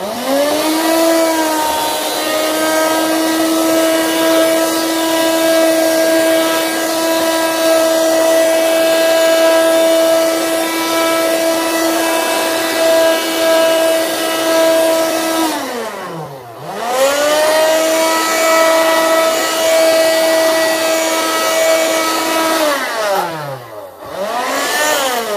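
Cordless rechargeable vacuum cleaner's motor running with a steady high whine as it is tried on a puddle of spilled water. About fifteen seconds in it winds down and spins back up, then winds down again near the end and briefly restarts.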